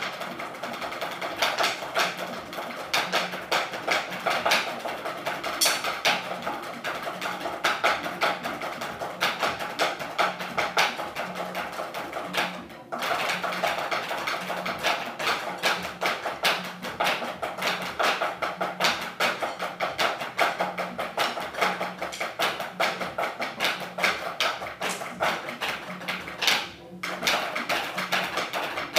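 A group of drummers playing a snare solo in unison with drumsticks on practice pads: dense, fast strokes with accents. The playing stops briefly twice, a little before halfway and again near the end.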